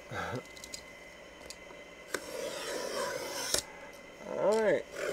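A cardboard jersey box being cut and opened by hand, with a blade scraping through the cardboard about two seconds in, then a short squeak that rises and falls near the end as the cardboard is worked open.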